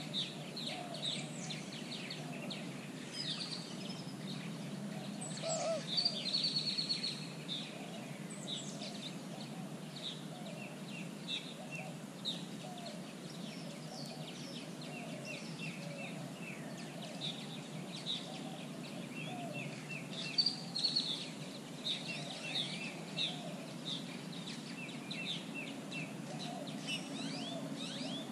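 Many birds calling at once: a steady stream of high chirps and squeaky whistles over lower repeated calls, with the loudest flurry about six seconds in, all over a low steady background rumble.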